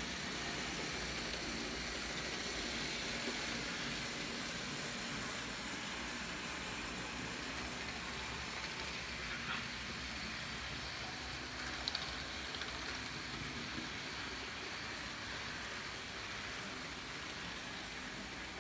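Model trains running on a layout: a steady whirring, rolling noise from the wheels and motors on the track, fading slightly, with a couple of faint clicks midway.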